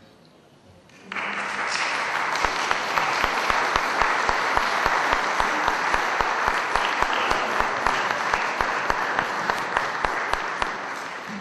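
Audience applauding. The applause starts abruptly about a second in, runs evenly with a regular low thudding through it, and tapers off near the end.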